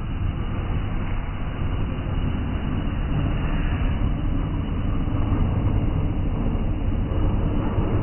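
Ground fountain firework burning, spraying sparks with a steady rushing noise that holds unchanged throughout.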